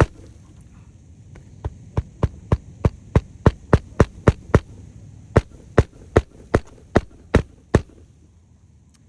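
Hammer driving roofing nails into asphalt shingles, sharp blows about three a second in two runs with a short pause between, setting the shingles back down during a repair.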